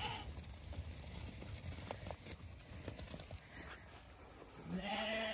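Faint pattering of a flock of Zwartbles lambs' hooves as they trot over grass, with a sheep bleat near the end.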